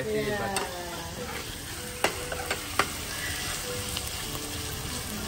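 Vegetables and chili paste sizzling in a stainless steel frying pan while a metal ladle stirs them, with a couple of sharp clinks of the ladle against the pan.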